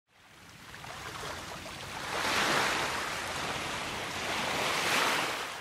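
Ocean waves washing in, swelling twice and fading away.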